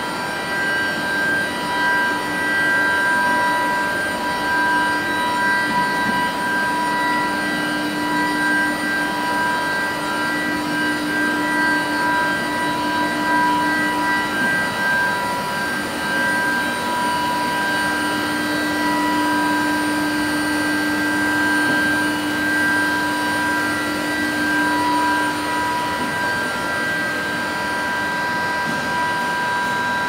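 Long-bar induction hardening and tempering line running: a steady high-pitched whine of several held tones over an even mechanical hum. A lower hum underneath drops away briefly about halfway and fades again near the end.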